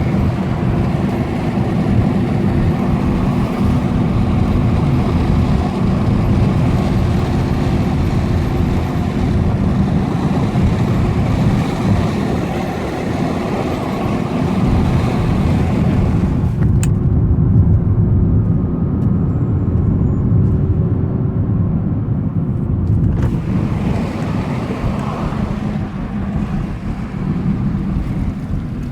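Steady driving noise of a 2017 Nissan GT-R: the twin-turbo V6 and tyres rumble with a constant hum, and the road hiss drops away for several seconds about two-thirds through. The owner hears an intermittent screeching chirp from the car from the start of the drive, which is the fault being recorded.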